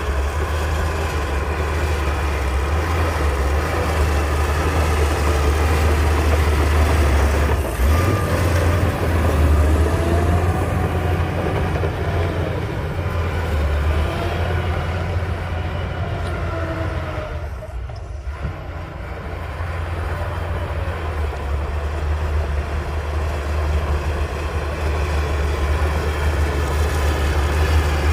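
Shantui crawler bulldozer working, its heavy diesel engine running steadily under load, with squealing glides from the steel tracks in the middle of the stretch. The noise dips briefly about two-thirds of the way through, then comes back up.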